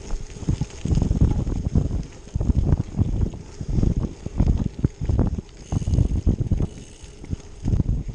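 Wind buffeting the microphone in irregular low rumbling gusts, several a second at times, over a faint steady hiss.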